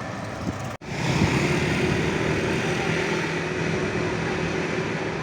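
A large engine, most likely a passing bus, running with a steady drone. The sound drops out abruptly for a moment about a second in, then resumes.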